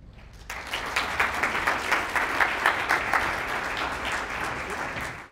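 Audience applauding, starting about half a second in and cutting off suddenly at the end.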